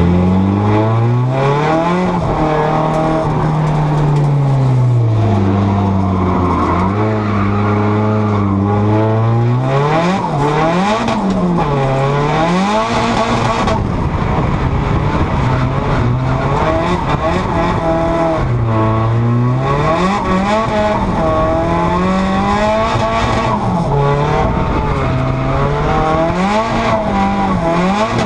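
Nissan S13 drift car's engine heard from inside the cabin, its revs rising and falling over and over as it is driven hard through the course, with tires squealing and skidding.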